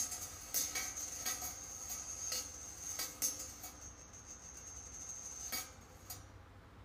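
Small steel balls rolling along the wire tracks of a rolling-ball kinetic sculpture, with irregular metallic clicks and rattles as they strike the wire. A thin high steady tone runs underneath and fades out near the end.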